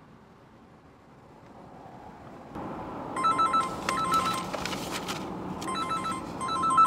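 Mobile phone ringing: a trilling electronic ringtone in two bursts, about three seconds in and again near the end. Newspaper rustles between the rings.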